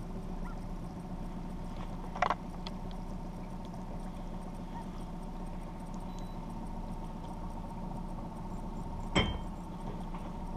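Outboard motor running steadily at trolling speed, a constant low hum. There are two short sharp knocks, about two seconds in and again near the end.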